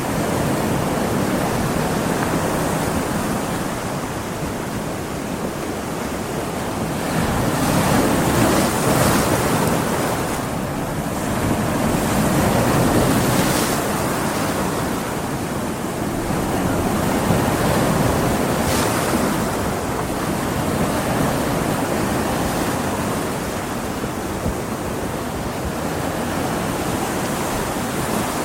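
Big ocean waves breaking on a beach in a stormy sea, a continuous rushing wash that swells and ebbs every few seconds, with wind.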